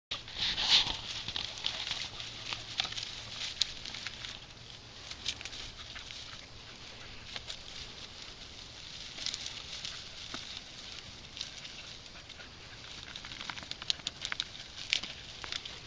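Dry grass and briar canes rustling and crackling as they are pushed through, with irregular sharp snaps and ticks. The loudest burst comes about a second in.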